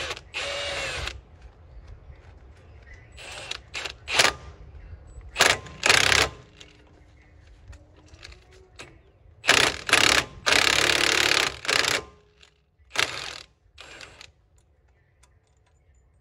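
Milwaukee cordless impact wrench hammering in several short bursts, the longest about two seconds, running a lug nut over a washer to draw a new wheel stud into the hub.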